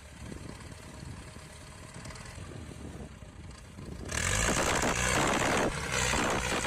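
Vehicle engine running with a low rumble, then much louder from about four seconds in, with a rushing hiss over it.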